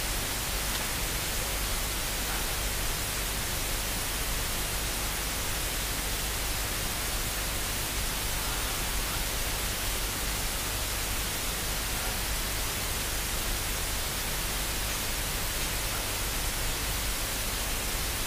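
Steady hiss like static, with a low hum beneath it and no other sound.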